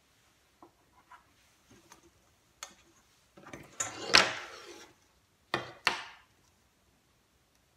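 Long wooden yardstick being handled on a table: a few light clicks, then a scraping slide about halfway through, and two sharp knocks as it is set down.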